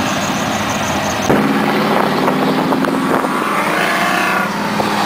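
Two V8 pickup trucks, a Dodge Ram Rumble Bee Hemi and a Ford F-150 Lightning, run steadily, then launch hard about a second in. The engines rev up under full throttle, rising in pitch, and drop back near the end.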